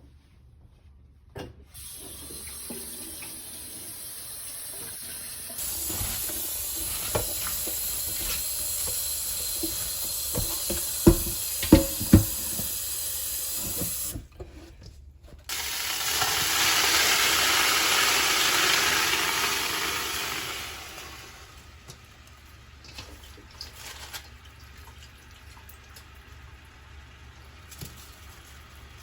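Water running from a kitchen tap into a sink in two stretches, the second louder, with three sharp knocks of kitchenware near the middle and light clatter afterwards.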